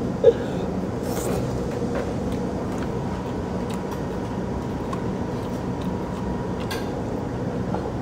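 Steady mechanical hum of an air conditioner running, with a few faint short clicks and slurps from eating noodles with chopsticks.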